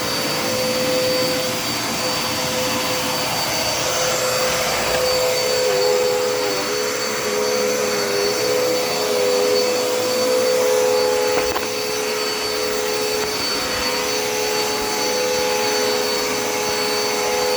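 Dirt Devil Endura Reach upright vacuum cleaner running steadily, a continuous motor hum with a steady high whine. Partway through, a second tone in the hum wavers briefly.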